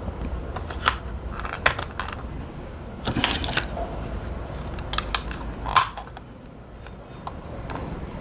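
Computer mouse being put back together by hand: irregular clicks and taps of its plastic shell and parts, a cluster of them about three seconds in, over a low steady hum.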